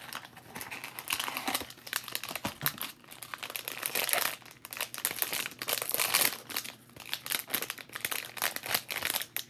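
Foil blind-bag wrapper crinkling and tearing as it is pulled open by hand: a dense, irregular run of crackles.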